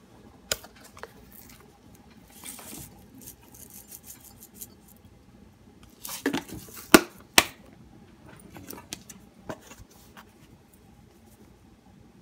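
Plastic spice shaker caps clicking open and shut, with short rattles of seasoning being shaken out of the jars. A run of sharp clicks about six to seven and a half seconds in is the loudest part.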